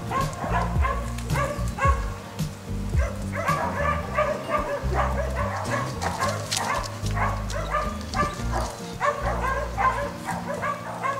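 Working kelpie barking over and over in short, quick barks, with background music underneath.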